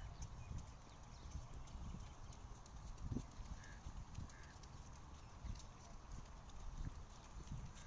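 Footsteps on a paved path: irregular soft slaps and clicks over a low rumble.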